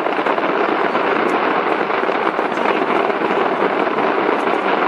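Fireworks going off from a skyscraper in a steady, dense crackling, with no clear gap.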